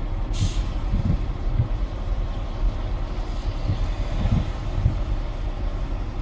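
Steady low rumble of a vehicle in motion, with irregular low thumps and a brief hiss about half a second in.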